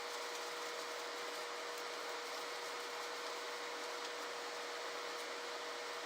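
Steady background hiss with a faint, steady high-pitched hum, and a few faint ticks.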